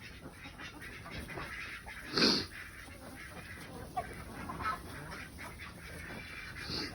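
A flock of chickens and ducks calling, with one louder call about two seconds in and a few quieter calls after it, over scattered light ticks.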